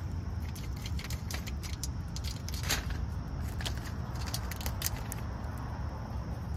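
In-shell peanuts clicking and rattling against a metal tray as a gray squirrel rummages through them: a run of irregular light clicks, thickest in the middle, over a steady low rumble.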